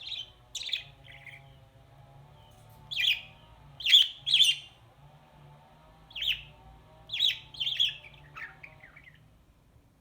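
Pet budgie giving a string of short, sharp chirps, some in quick pairs, that stop about nine seconds in.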